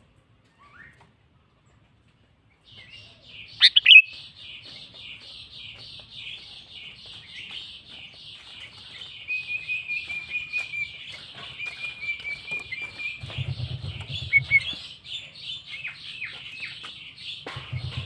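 Sooty-headed bulbul calling. After a quiet start, fast steady chattering begins about three seconds in, with a loud sharp call just after it and a held whistled note in the middle. A low rumble comes in twice near the end.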